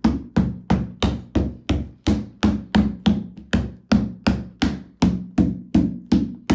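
Rubber mallet striking the plastic panel of a chick brooder in a steady rhythm of about three blows a second, each blow a sharp knock with a short low ring. The blows are seating the wall pegs into their holes to lock the panels together.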